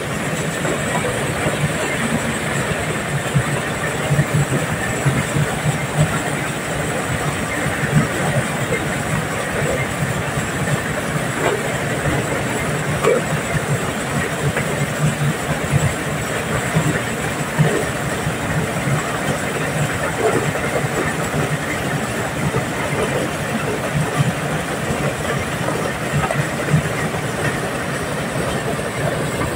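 Diesel-powered corn sheller running steadily under load while dried corn cobs are fed into it. The engine's steady drone is mixed with a dense, irregular rattle of cobs and kernels inside the shelling drum.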